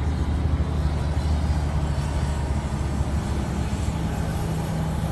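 Steady low engine rumble with a constant deep hum, no single event standing out.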